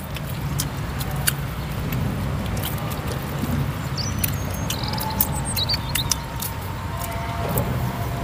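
Eating sounds: chewing and scattered wet lip-smacking clicks as food is eaten by hand, over a steady low rumble.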